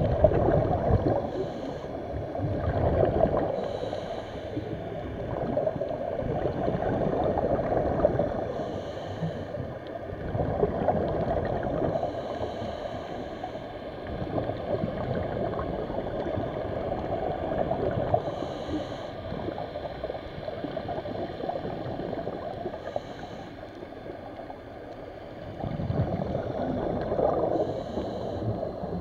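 Muffled gurgling and sloshing water, surging and easing over a few seconds, with a faint short hiss every few seconds.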